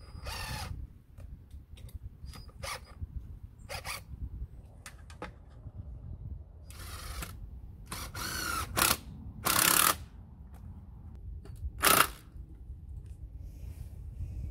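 A series of short rasping zips as cable ties are pulled tight, fixing the remote coax switch box and its cables to a wooden fence post. The zips are loudest in the second half, with two long ones about eight and a half and nine and a half seconds in and a sharp one near twelve seconds.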